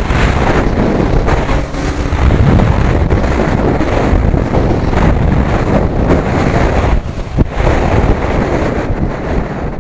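Heavy wind buffeting on the microphone of a motorcycle riding at high speed, with the sport bike's engine faintly beneath it.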